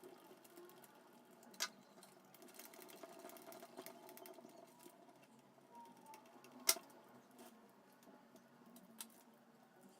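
Faint handling of small plastic parts as an RC truck's plastic shock absorber is taken apart, with a sharp click about a second and a half in, a louder one near the middle and another near the end. A faint whirr runs for a couple of seconds early in the middle.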